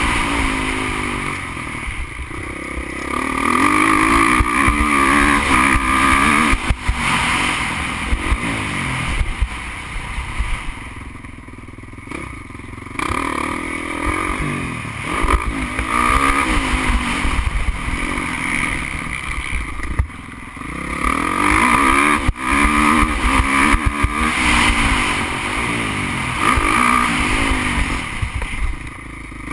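Motocross bike's engine heard from on the bike, revving hard with its pitch rising and falling as the rider accelerates and shifts. The throttle backs off twice, about a third and two thirds of the way through, before the engine pulls hard again.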